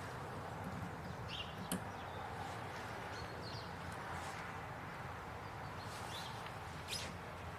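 Quiet outdoor ambience with a few faint, short bird chirps and two small sharp clicks, one about two seconds in and one near the end; the motorcycle engine is not running.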